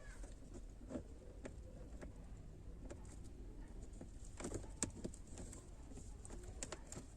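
Quiet handling noises: a few faint clicks and taps as an adhesive LED strip and its wire are pressed into place under a car's dashboard, over a low steady hum.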